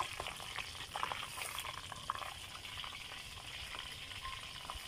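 Duck frying in hot oil in a large steel pot, the oil sizzling steadily, with a few light clicks in the first two seconds.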